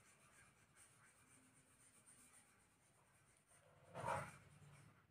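Near silence: faint room tone with light pen-on-paper scratching, and one brief soft sound about four seconds in.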